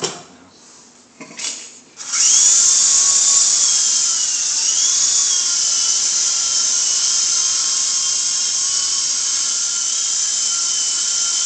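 Small indoor remote-control toy helicopter's electric motor and rotors starting up suddenly about two seconds in, then a steady high whine as it flies, the pitch dipping and recovering once shortly after.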